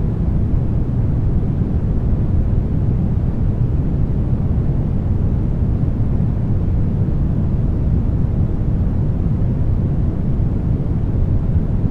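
Steady brown noise: an even, deep rumble-like hiss with most of its energy in the bass and little in the treble.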